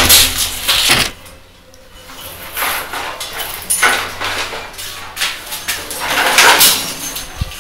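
Bundle of insulated electrical wires rustling and scraping as it is handled and pulled through a ceiling fan box, in irregular bursts with a brief lull about a second in and a sharp click near the end.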